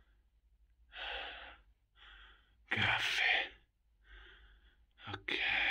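A man's heavy breathing close to the microphone: about one breath a second, every other one louder, with a small click just after five seconds.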